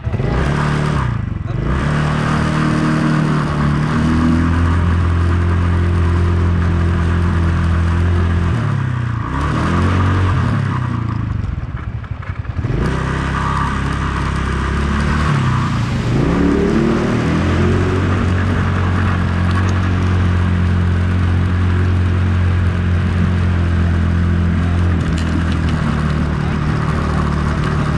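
ATV engine running under way, its pitch rising and falling several times as the machine speeds up and slows, and holding steady in between, over a steady hiss.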